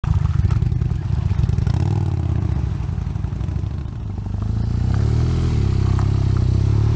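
Motorcycle engine running, easing off about four seconds in, then picking up revs again.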